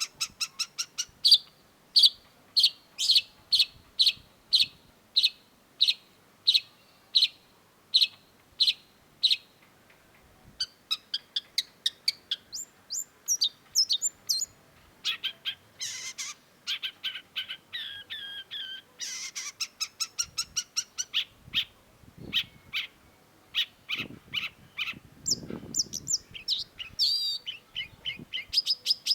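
Long-tailed shrike singing: first a steady run of loud, sharp calls, about one and a half a second, then a fast, varied chattering song with quick trills and whistled notes.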